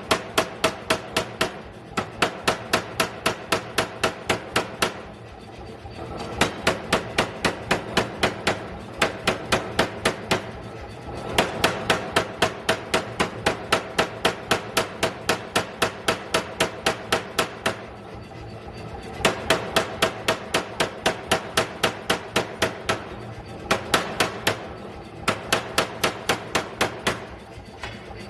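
40 kg pneumatic forging air hammer striking in fast, even runs of about five blows a second, broken now and then by pauses of about a second.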